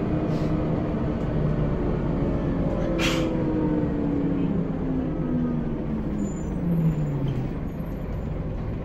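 Cabin sound of a Scania L94UB single-deck bus on the move: a steady engine and driveline drone with a whine that falls in pitch as the bus slows. A short, sharp hiss of released air comes about three seconds in.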